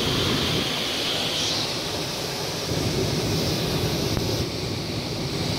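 Steady rushing noise of a flash flood's headwall, muddy water surging down a dry rocky wash.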